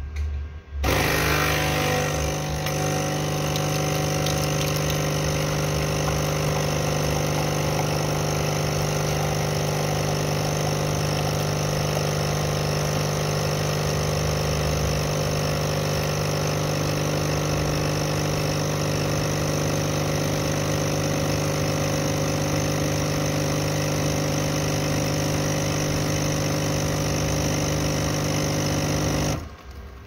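Capsule coffee machine's pump running with a steady hum while it brews into a mug. It starts about a second in and cuts off shortly before the end.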